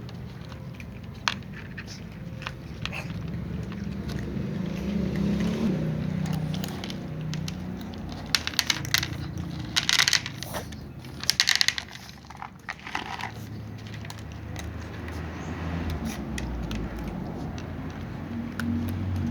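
Cats eating, crunching food with their teeth. The crunching comes as scattered clicks, with louder runs of rapid crunches a little before halfway through and shortly after. A low steady hum sits underneath.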